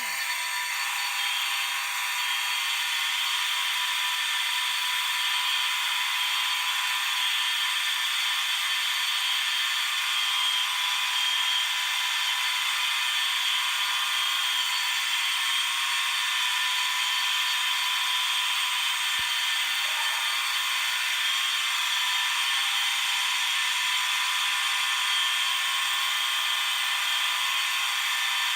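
A large collection of fire alarm horns and notification appliances, a Wheelock 7000 and a Gentex Commander 3 among them, all sounding together on continuous, most on high volume. They blend into one loud, steady wall of many tones that starts at once and never pauses.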